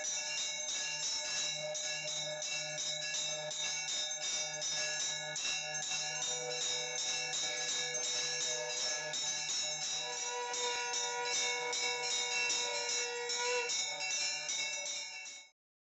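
Brass puja handbell (ghanta) rung rapidly and continuously during aarti, many overlapping ringing tones sustained throughout; it cuts off suddenly near the end.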